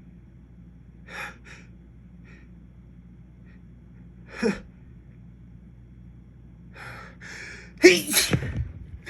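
A man's sneeze building up: a few short, sharp breaths, then two longer in-breaths and one loud, wet sneeze near the end.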